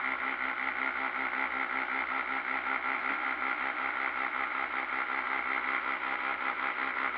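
Automatic pet feeder's small electric motor and gear train turning the scoop drum: a steady whirring with a fast, even pulsing several times a second. The gear train runs on a newly cut brass gear in place of a plastic cog that kept stripping.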